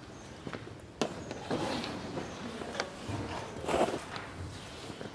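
Footsteps on rough, debris-strewn ground: irregular scuffs and crunches, with a sharp click about a second in and another near the middle.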